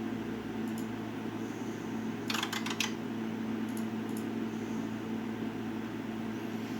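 Steady hum of the oscilloscope's cooling fan, with a quick run of small clicks about two and a half seconds in and a few fainter clicks around it.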